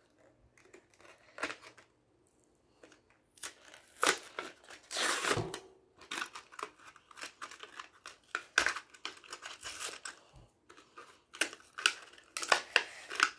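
A Hot Wheels cardboard-and-clear-plastic blister card being torn open by hand, with irregular bursts of tearing and plastic crinkling as the die-cast car is worked free. The sound starts about three seconds in and is loudest about four to six seconds in.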